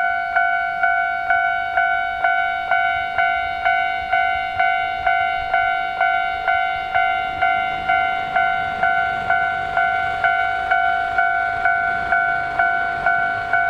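Japanese railroad crossing warning bell sounding its 'kan-kan', one ringing strike a little over twice a second, each tone dying away before the next. A low rumble builds underneath in the second half.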